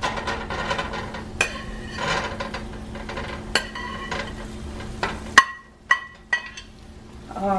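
Cooked steak cubes being dropped and pushed into a nonstick pan with a utensil: soft thuds and scraping, with several sharp knocks and short ringing clinks of the utensil against the pan, the loudest about five and a half seconds in. A steady low hum and hiss underneath cuts off abruptly just before that.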